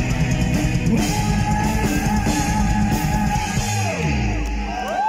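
Live heavy metal band, with distorted electric guitars, bass, drums and vocals, playing the closing bars of a song: a long high note is held, then a falling run in the low notes, and the music stops near the end.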